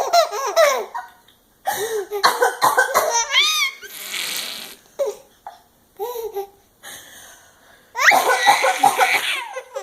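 Baby laughing hysterically in repeated bursts, with high rising squeals, and a long laughing fit near the end. About four seconds in, a breathy fake cough from the mother sets her off.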